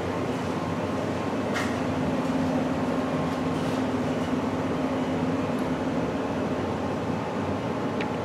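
Steady mechanical hum with a low droning tone, the running-machinery sound of a basement, and a faint click about one and a half seconds in.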